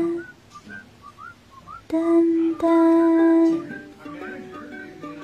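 Light background music: long held notes alternating with short, whistle-like melodic phrases.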